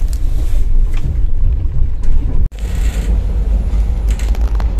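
Passenger train running, its steady low rumble heard from inside an open-plan sleeper carriage. The sound drops out for an instant about halfway through.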